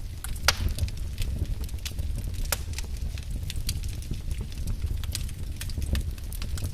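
Wood fire crackling in a fireplace: irregular sharp pops and snaps over a steady low rumble, the loudest pop about half a second in.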